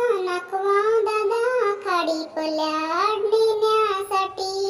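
A single high voice singing a verse of a Marathi children's poem to a simple tune, with long held and gliding notes and no accompaniment.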